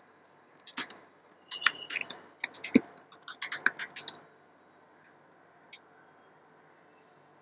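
Typing on a computer keyboard: a quick, irregular run of key clicks for about three seconds, then a single key click a couple of seconds later.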